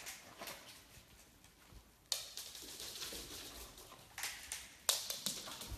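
Fennec foxes scampering on a hard floor: quick clicking and scrabbling of claws, with two louder scrapes, about two seconds in and near the end.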